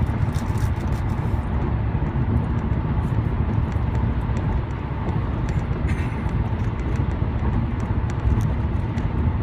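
Steady road noise of a car on the move, heard from inside the car: a low rumble of engine and tyres with no clear events.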